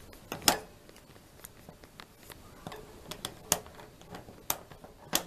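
Scattered small clicks and knocks at irregular intervals over a faint hiss. The sharpest comes about half a second in, and others come near the end.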